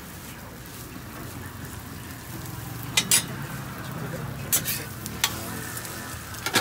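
Egg and ham slices sizzling on a flat-top griddle, a steady frying hiss that swells slightly midway. In the second half come four or five sharp metal clinks as the steel egg mold is lifted off the griddle.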